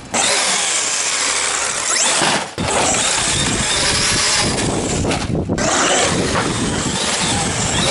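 Traxxas X-Maxx electric RC monster truck driving in a concrete skatepark: a brushless motor whine rising and falling with the throttle over loud tyre and drivetrain noise. The sound breaks off briefly twice, about two and a half and five seconds in.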